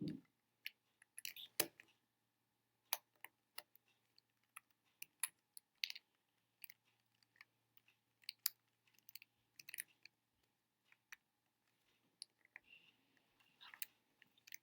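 Faint, irregular plastic clicks from a GAN 356 X speedcube's tension nut being turned round and round to tighten a centre piece.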